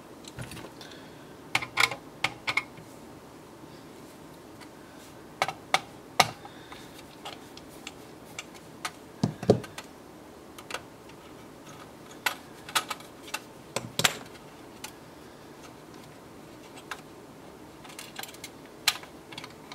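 Irregular sharp clicks and taps of fingers and a small screwdriver working the sheet-metal chassis of an HP T5745 thin client, prying at a small metal cover plate. There is a dull thump about halfway through and another a few seconds later.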